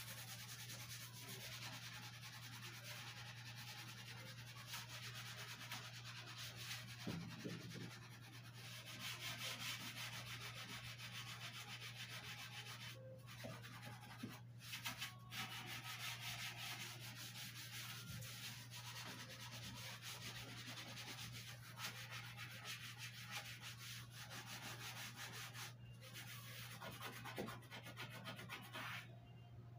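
Kitchen sponge scrubbing a white shelf with spray cleaner: fast back-and-forth rubbing strokes, broken by a few short pauses, working at grimy stains.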